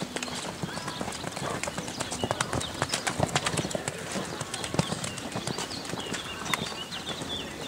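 Grey pony's hooves cantering on a wet sand arena: a continuous run of dull hoofbeats.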